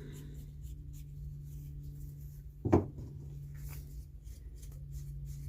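Faint clicks and rubbing from the jaw of a cleaned and oiled Crescent adjustable wrench being slid along its rails, now moving freely, over a steady low hum. One short, louder sound about three seconds in.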